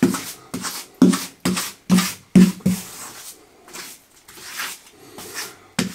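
Grout being pressed into the joints of a tiled worktop: a tool knocks quickly on the tiles about seven times over the first three seconds, then scrapes more softly, with one more sharp knock near the end.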